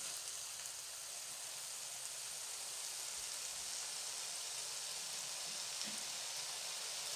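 Chicken strips and julienned carrots sizzling in oil in a wok over a gas flame, a steady hiss.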